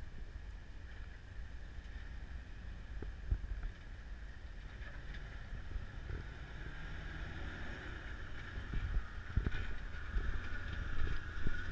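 Jeep Wrangler Rubicon crawling slowly over rocks, its engine running low and steady and getting louder as it nears. A few knocks come with it, the loudest about nine and a half seconds in.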